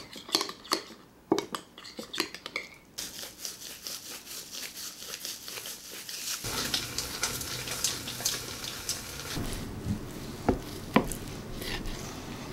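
A metal spoon stirring a thick mixture in a glass bowl, clinking and scraping against the glass. About three seconds in it gives way to a steady crackling hiss, with a few sharp knocks near the end.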